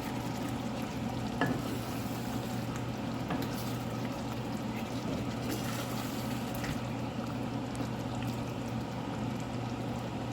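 Dried squid sambal cooking in the pan, its thick oily gravy sizzling and bubbling steadily, with a few light clicks.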